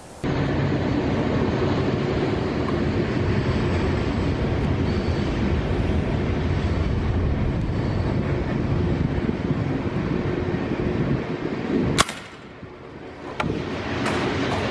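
Steady loud rushing noise, then a single sharp crack about twelve seconds in: the shot of a Daisy 880 pellet air rifle, after which the sound drops and a few faint clicks follow.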